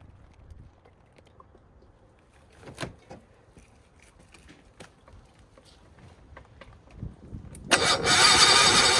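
A few light clicks and knocks, then near the end the Kobelco SS1 excavator's engine starts suddenly and keeps running loudly.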